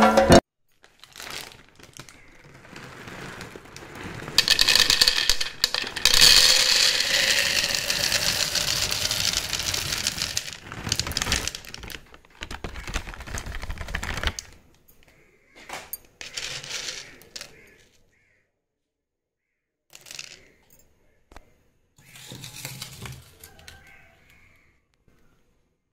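Dried chickpeas rattling and clattering against a plastic jar, with a plastic bag crinkling. This is loudest and nearly continuous for about ten seconds in the first half. It is followed by a few shorter rattles and rustles with pauses between.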